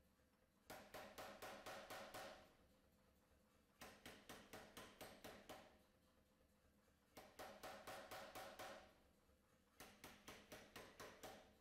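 Anyang pneumatic power hammer striking a glowing hot steel billet in runs of rapid, evenly spaced blows, about five a second. The runs are about a second and a half long and come four times, with short pauses between them.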